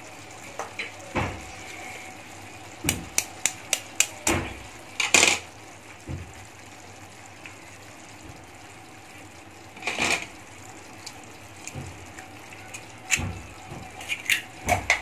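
Eggs cracked one by one into a pan of simmering masala gravy: sharp taps of the shells being broken, several in quick succession a few seconds in, again around ten seconds and a cluster near the end, over a steady low hiss of the gravy cooking on a medium flame.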